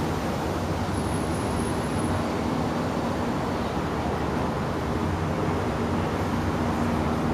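Road traffic passing on a city street: a steady rumble of cars driving by with a low engine hum.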